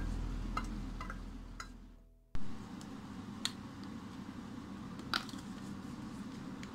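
Background acoustic guitar music fades out over the first two seconds, then drops to a brief silence. Faint room tone follows, with two small sharp clicks about a second and a half apart.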